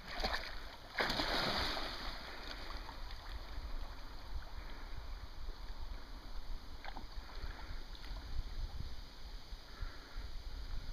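A flat-coated retriever splashing through lake water about a second in as it pushes off from wading into swimming, then a steady low rumble of wind and water.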